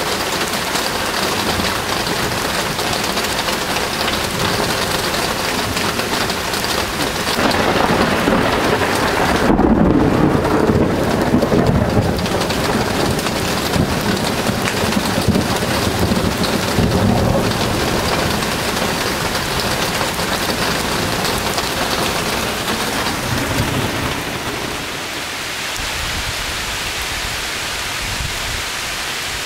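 Steady rain falling in a thunderstorm, with a rumble of thunder rising about a quarter of the way in and lasting several seconds, and a weaker rumble about halfway through.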